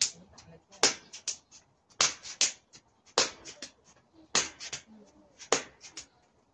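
Rhythmic slaps of a hand against the body as the arms swing in a tai chi arm exercise. About every second and a quarter comes one sharp slap, followed by two or three lighter pats.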